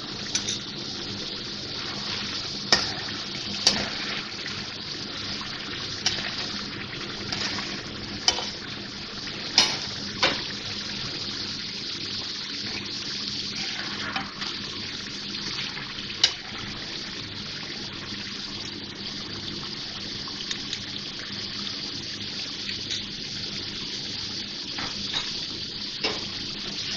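Chicken curry sizzling steadily in hot oil in a karahi as yogurt is stirred in and fried into the masala. A spoon clicks sharply against the pan now and then, mostly in the first half.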